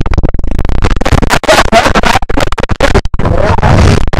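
Loud, jumbled, indistinct voices with heavy rubbing and knocking on the phone's microphone as it is moved against clothing. This gives a distorted, crackling mess of sound.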